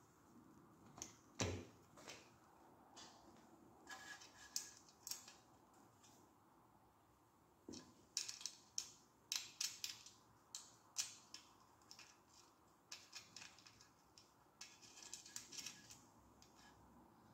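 Faint, scattered clicks and taps of small metal parts and hand tools being handled while a licence-plate holder is fitted to a motorcycle's rear fender.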